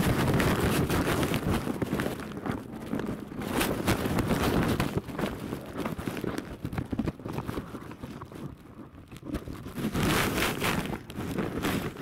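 Footsteps with rustling and knocking from a camera being carried, irregular and uneven, with some wind rumble on the microphone.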